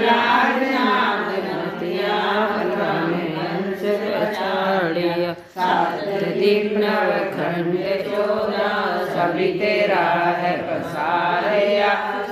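A group of women singing a Hindu devotional song (bhajan) together, with a short break about five and a half seconds in.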